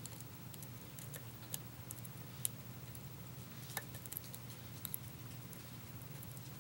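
Faint, irregular metallic clicks and ticks of an offset hybrid lock pick and tension wrench working the pins of a pin-tumbler challenge lock, over a steady low hum.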